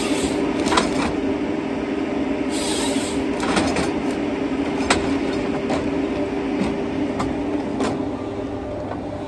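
John Deere 953MH tracked harvester's diesel engine running steadily under hydraulic load, while its Waratah 622B processing head works the logs with a series of sharp knocks and cracks. A short hiss comes about two and a half seconds in.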